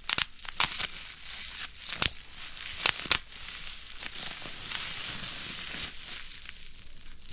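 Plastic bubble wrap being squeezed by hand: steady crinkling and rustling of the plastic, with a handful of sharp pops as bubbles burst, most of them in the first three seconds.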